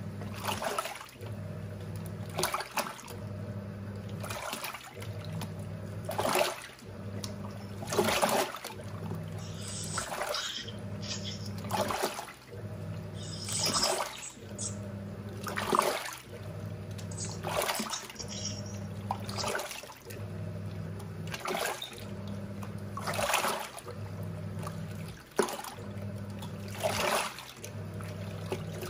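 Giantex EP23113GB fully automatic top-loading washing machine agitating a load. The motor hums in bursts of about a second and a half, turning the wash back and forth, and the water sloshes and swishes at each turn, about every two seconds.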